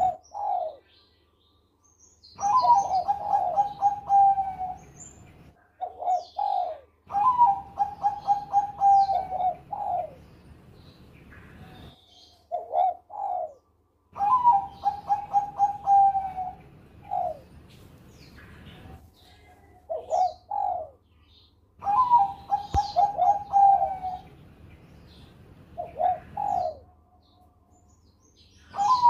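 Bangkok-type zebra dove (perkutut) singing its staccato cooing song: four phrases of rapid, evenly repeated coos, each two to three seconds long, with short two- or three-note coos between them and brief silences.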